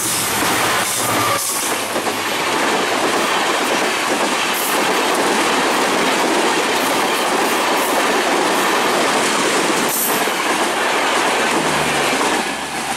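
Passenger coaches of a diesel-hauled train rolling past close by at speed: a loud, steady rush of wheels on rail with occasional clacks over rail joints. The EMD diesel locomotive's engine drone fades within the first second or two, and the noise drops off near the end.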